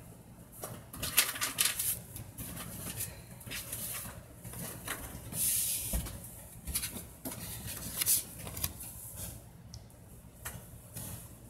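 Scattered small clicks and taps at irregular intervals, with a short rustle about halfway through.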